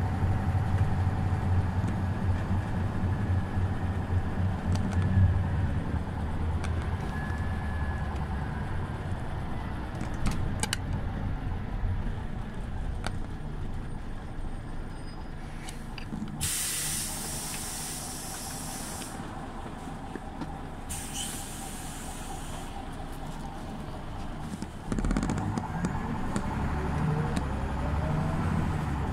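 Scania OmniLink CL94UB city bus with its diesel engine running under way, then settling to a quieter idle. About halfway through come two loud hisses of released compressed air. Near the end the engine picks up again with a rising pitch as the bus pulls away.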